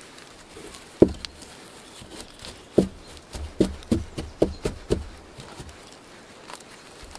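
Hollow wooden knocks as moss is packed into the gaps between cabin logs with a wooden stick. There is one knock about a second in, then a quick run of about six more between three and five seconds in.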